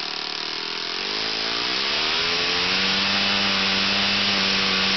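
RCV 60 rotating-cylinder four-stroke model aircraft engine running with a 14x9 propeller. About a second in, its pitch rises smoothly as it speeds up, then after about a second and a half it holds steady, faster and louder.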